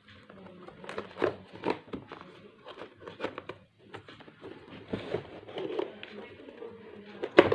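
Keyboard packaging being opened by hand: irregular crinkling and rustling of box and wrapping, with one sharp knock near the end.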